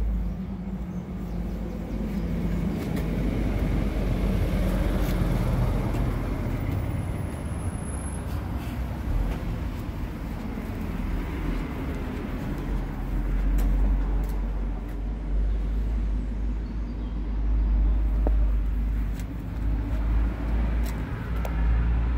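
Heavy truck's diesel engine running at idle, a steady low rumble.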